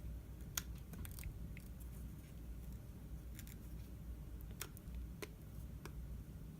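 Faint, scattered small clicks and taps, about seven in all, from handling the opened iPhone 5s and its parts during reassembly, over a low steady hum.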